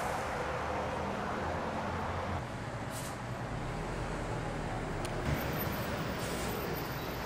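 Street traffic noise: a steady hum and rumble of passing vehicles, with a couple of brief clicks.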